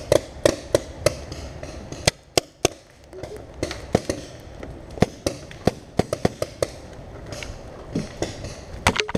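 Guns in a team shooting game firing a string of sharp cracks, irregular, two or three a second, thinning out briefly about two to three seconds in.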